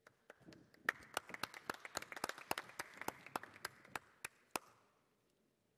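An audience applauding briefly: a crowd's clapping, with a few sharp single claps standing out, rising quickly and dying away near the end.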